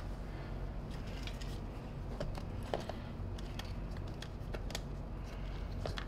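Faint, scattered clicks and taps of plastic vacuum power-brush nozzle parts being handled and fitted together, over a steady low hum.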